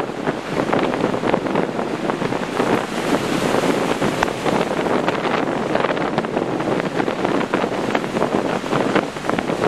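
Rough sea surf breaking and washing up a sandy beach in strong wind. It makes a steady rushing sound full of short crackles, with wind buffeting the microphone.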